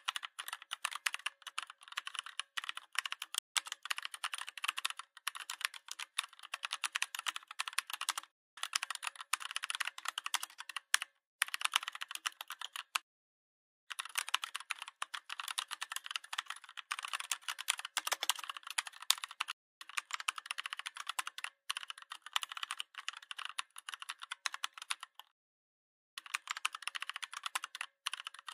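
Rapid clicking of typing on a computer keyboard, in runs of several seconds broken by a few short silent pauses.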